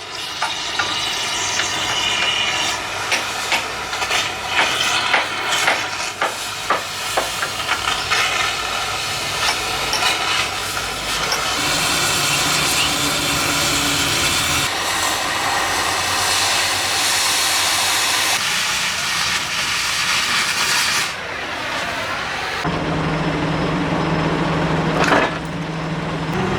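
Scrap-metal dismantling work: a run of sharp metal knocks like hammer blows over a hissing gas flame, then steady hissing, changing abruptly several times as short clips follow one another, with a steady low machine hum near the end.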